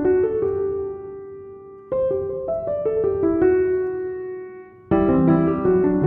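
Background piano music: clusters of notes struck and left to ring and fade, with new phrases beginning about two seconds and five seconds in.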